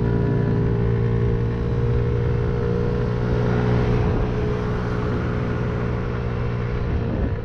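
Small motorcycle's engine running at a steady speed while riding, heard from the rider's helmet camera, with a steady rush of wind and road noise.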